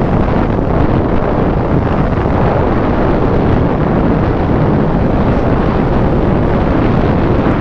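Steady wind buffeting the microphone and riding noise from a KTM Duke 200 motorcycle cruising at about 65 km/h.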